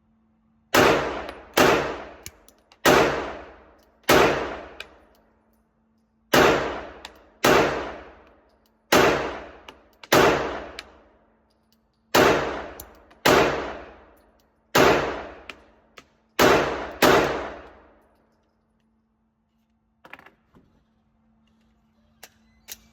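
PSA Dagger pistol firing thirteen shots at an uneven pace, roughly one a second, some in quick pairs. Each shot is followed by about a second of ringing echo. A few faint clicks come near the end.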